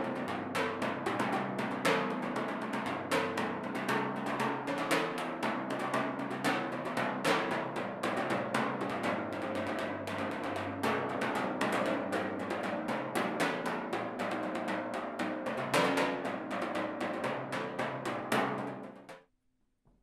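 Timpani played with craft dowels: a fast, dense run of clicky strokes with the drums' low pitches ringing underneath. It stops about a second before the end.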